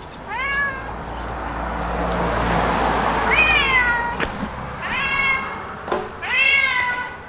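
A cat meowing four times, each a short rising-then-falling call. A rushing noise with a low rumble swells and fades under the second meow.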